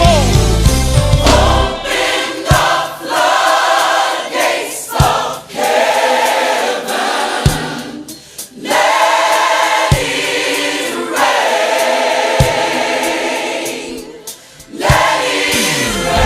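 Gospel choir singing a slow worship song with a band. After about two seconds the bass drops away, leaving the voices over a single low beat about every two and a half seconds, and the full band comes back near the end.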